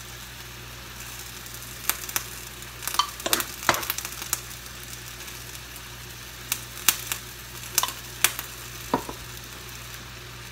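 Beef and onion simmering in sauce in a frying pan with a steady low sizzle. Several sharp clinks, in small clusters, come from a metal ladle skimming off the scum and tapping against the pan and a measuring cup of water.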